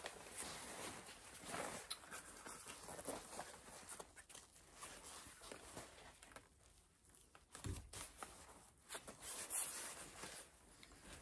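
Faint rustling of a stretch-jersey jacket being handled on its hanger, with a soft thump a little over halfway through.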